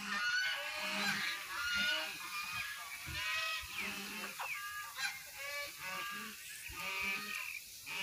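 A flock of birds calling, many short repeated calls overlapping throughout.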